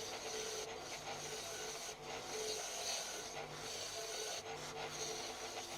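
Repeated rasping file strokes on a wooden handle, about one long stroke every second or so, with short breaks between strokes.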